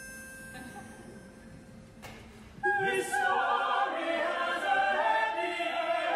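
Opera singers and orchestra coming in loudly together about two and a half seconds in, many voices singing at once. Before that there is only a faint held high note and a single click.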